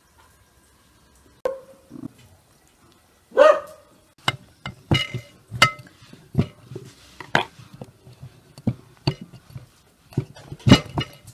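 Sharp clicks and knocks of hard medlar fruits and a metal fork against a glass jar as the fruit is packed in, some with a brief glassy ring. A dog barks a few times in the first few seconds.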